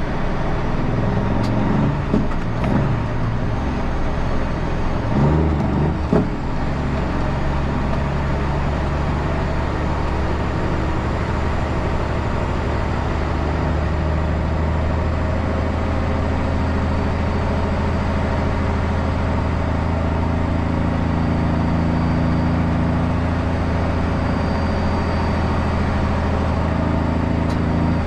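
Heavy truck engine running steadily under way, from a Kenworth C500 winch truck, with a few short knocks and rattles in the first six seconds.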